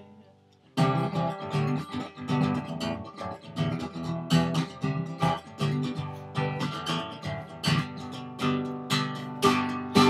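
Acoustic guitar strummed in a steady rhythm, its chords ringing between strokes. The playing drops out for a moment at the start, then resumes.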